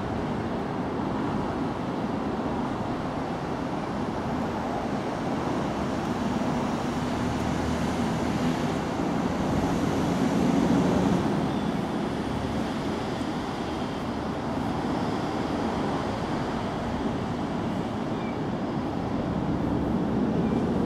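Steady background rumble of road traffic, swelling a little about halfway through.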